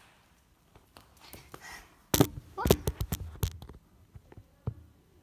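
A quick run of knocks and thumps about two seconds in, with a short voice sound among them; otherwise a quiet room with a few faint ticks.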